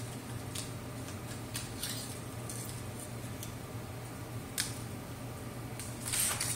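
A cat moving about a coffee table with a crumpled scrap of trash: scattered light clicks and taps, then a louder scuffling thump near the end. A steady low hum runs underneath.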